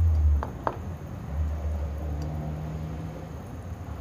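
Boiled eggs being dropped into a pot of simmering coconut-milk curry: two short taps about half a second in, over a low hum.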